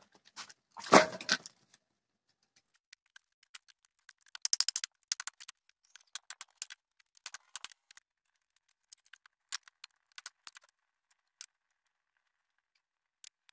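Armful of split firewood dropped onto hard dirt ground, a loud wooden clatter about a second in. Then scattered sharp wooden clicks and crackles of kindling at a clay hearth, thickest a few seconds later.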